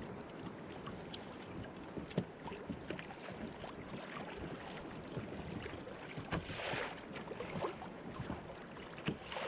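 Sea water lapping and sloshing against a kayak hull, with frequent small knocks and clicks. The water noise swells briefly about seven seconds in.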